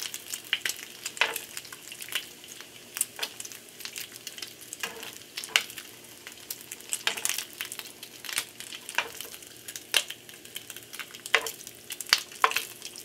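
Small pieces of bacon frying in a nonstick pan, done and being lifted out: a steady sizzle broken by frequent, irregular sharp crackles and pops of spitting fat.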